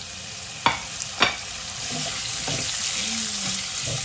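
Raw chicken breast strips sizzling in hot olive oil and garlic in a nonstick pan, with two sharp knocks about a second in. The sizzle grows louder about halfway through.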